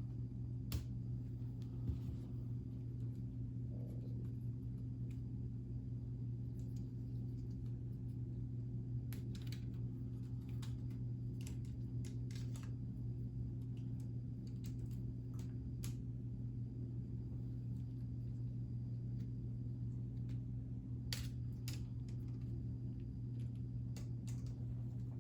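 Electric motor of a K'nex Pharaoh's Fury swinging-ship ride model running with a steady hum, with scattered light clicks of plastic parts.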